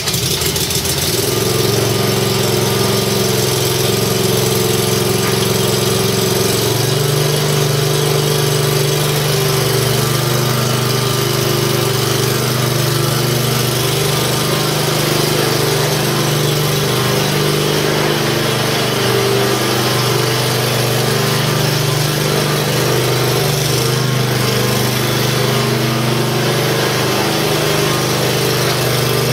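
Kawasaki 15 hp pull-start engine on a 2006 Exmark Viking 48 hydro mower catching on the pull cord, then running steadily. About seven seconds in its running note shifts slightly.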